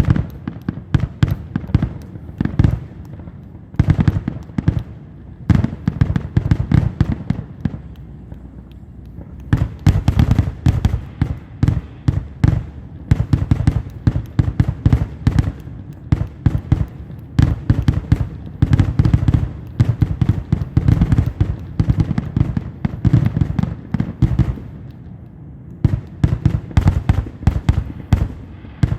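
Fireworks going off in rapid, overlapping bangs and crackles, with a couple of short lulls.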